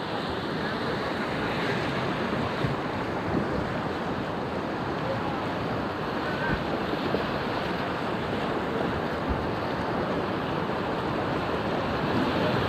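Whitewater of the Upper Salt River at about 1600 cfs rushing steadily around a packraft in a rapid, with a few brief splashes.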